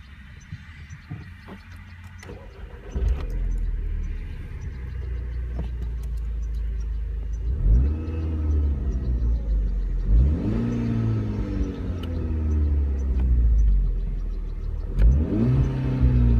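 Volkswagen Golf 6 GTI's turbocharged 2.0 TSI four-cylinder, stock exhaust, started up about three seconds in and settling into idle. It is then revved three times, each blip rising in pitch and falling back to idle.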